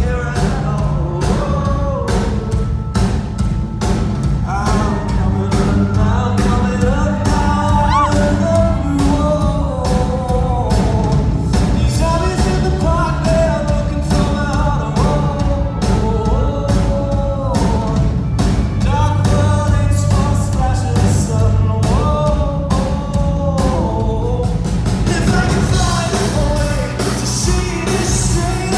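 A rock song performed live: a male lead singer over a full band, with drums keeping a steady beat.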